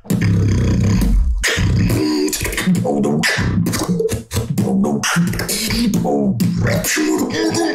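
Solo beatbox performance: a deep buzzing bassline under sharp snare and kick hits, with pitched vocal tones layered over it, the bass heaviest in the first second or so.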